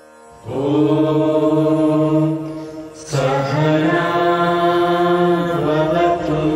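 Mixed group of men and women chanting a prayer in unison, each phrase a long held note. The voices come in about half a second in, pause briefly for breath near three seconds, then chant a second long phrase.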